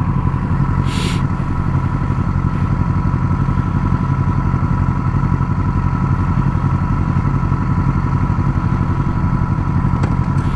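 Yamaha R6 sport bike's inline-four engine idling steadily, with no revving, and a short hiss about a second in.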